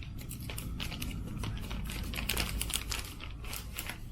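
Small plastic packaging and a small camera being handled and unwrapped: a busy run of irregular clicks, taps and crinkles.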